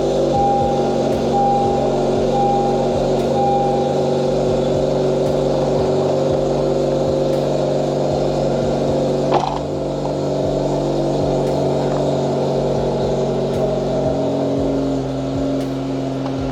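A 9th-generation Honda Civic Si's 2.4-litre four-cylinder engine running steadily during a test of a freshly adjusted clutch pedal. A repeating chime beeps for the first few seconds, and a single sharp click comes about nine seconds in.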